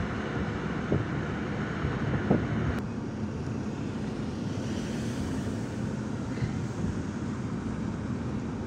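Steady road and engine noise of a car driving, heard from inside the cabin, with a couple of short knocks in the first few seconds. The higher hiss drops away about three seconds in.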